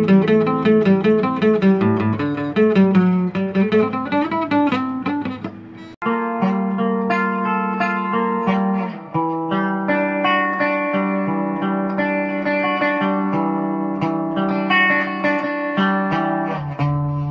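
An acoustic guitar fingerpicked, its notes ringing over low bass strings. It fades and cuts off about six seconds in, and an electric guitar takes over with clean picked notes and chords.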